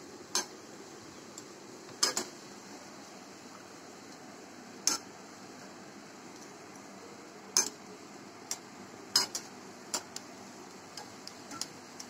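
A wire spider skimmer clinking against the metal frying pan about ten times at uneven intervals. Under the clinks, oil sizzles steadily around wheat-flour dough pieces deep-frying.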